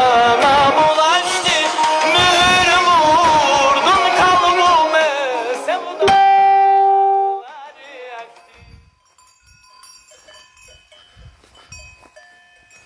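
A folk-style song with a solo voice and instruments for about six seconds, ending on a loud held note. The music then drops out, leaving faint, scattered tinkling of livestock bells.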